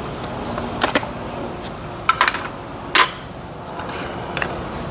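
Metal coffee canister being handled: a few sharp clinks and knocks with a short metallic ring, the loudest about three seconds in, over a steady background hiss.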